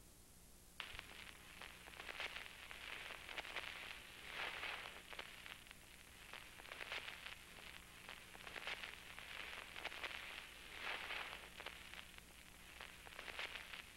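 Faint crackling static full of small clicks, rising and falling in uneven swells over a steady low hum, starting about a second in.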